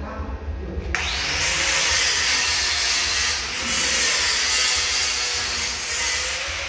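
Handheld angle grinder grinding metal. The disc bites in abruptly about a second in, and a harsh, steady grinding hiss with a motor whine under it carries on after that.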